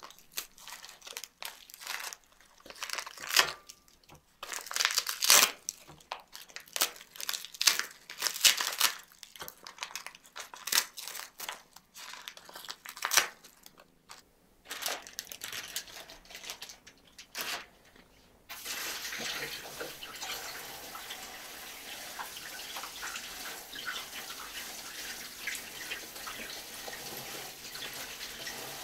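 A cat crunching and chewing fish from a glass bowl, in irregular sharp crunches. About two-thirds of the way through, a kitchen tap starts running steadily.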